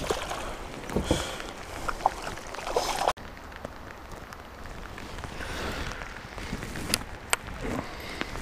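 Rain falling steadily on the lake and the kayak. In the first three seconds, water splashes and knocks as a muskie is let go over the side; two sharp clicks come near the end.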